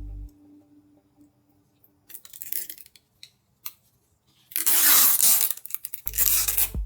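Packaging being handled and torn while a PC is built: a short crinkling rustle, a click, then a longer, louder tearing rustle. Background music comes back near the end.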